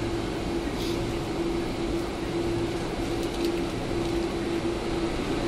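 Cabin noise inside a Boeing 747-400 rolling out on the runway after landing: a steady drone with a mid-pitched hum and deep rumble from the engines and the wheels on the runway.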